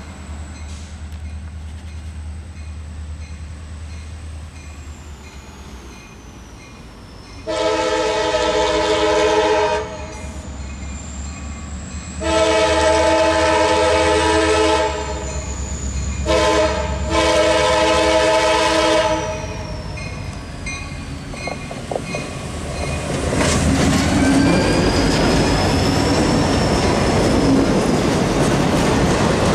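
Freight locomotive's multi-tone horn sounding the grade-crossing signal, long, long, short, long, over a grade-crossing warning bell ringing steadily. About 23 seconds in, the locomotives pass close by: engine rumble and clattering wheels on the rails, with a thin wheel squeal.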